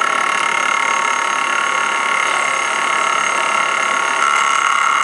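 Milling machine's end mill cutting metal: a steady high-pitched whine of several held tones over the hiss of the cut.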